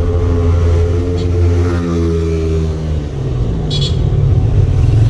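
A motor vehicle's engine running close by in road traffic, its pitch falling slowly over about three seconds and then climbing again. A brief high squeal comes near four seconds in.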